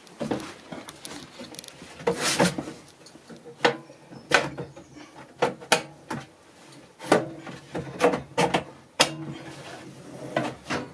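About a dozen irregular wooden knocks and bumps, some with a short ringing tail, as a wooden kitchen-cabinet drawer and cupboard parts are handled and fitted.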